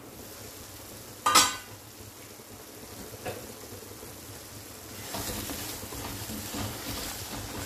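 A steel pan lid clanks once, about a second in. Thick spinach purée cooks in a kadai, and from about five seconds in a wooden spatula stirs it, scraping through the thickened palak.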